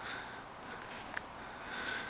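Quiet outdoor background with faint, short high chirps recurring every half second or so, and a single sharp click about a second in.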